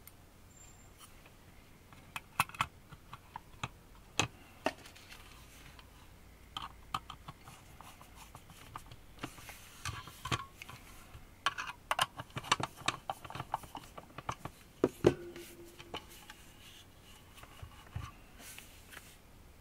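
Handling noise from an AMT D2 guitar pedal's metal enclosure being closed up and turned over by hand: irregular clicks, taps and knocks, busiest in the middle, with a louder knock about fifteen seconds in.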